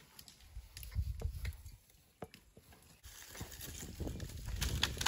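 African elephants feeding close by: grass and brush being torn up and twigs snapping in sharp cracks, with heavy rustling steps through the dry undergrowth.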